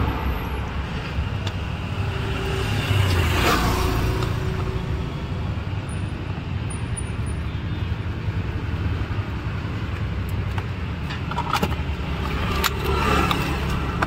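Plastic clicks and rattles from a Wagon R door's power window switch panel as it is worked loose from the door trim, with a few sharp clicks near the end, over a steady low background rumble.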